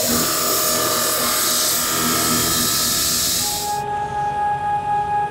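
CNC plasma cutter torch hissing as it cuts through steel sheet, with a steady whine underneath. The hiss cuts off suddenly about four seconds in while the whine carries on.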